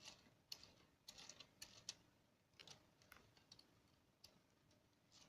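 Faint, irregular plastic clicks and taps from handling a LEGO Technic model car as it is turned over.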